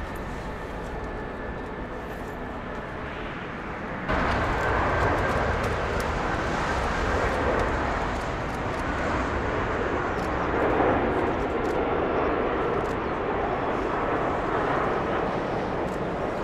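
Jet airliner engine noise: a steady rush with a faint high whine, which about four seconds in jumps abruptly louder and carries on as a broad, steady jet noise.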